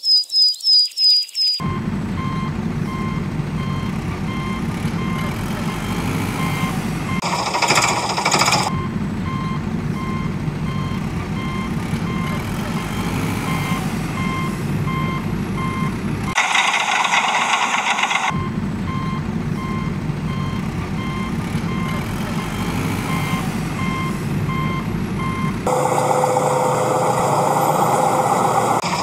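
Heavy vehicle engine running with a reversing alarm beeping at an even pace. The machine sound changes briefly twice and again near the end.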